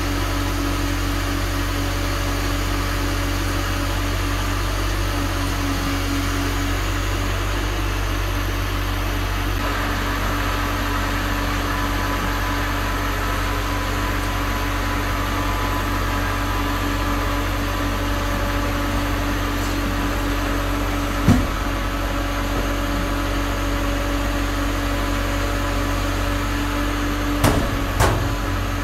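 Kale harvester's machinery running steadily: a constant low drone with a steady hum over it. A single knock about two-thirds of the way through and two more knocks near the end.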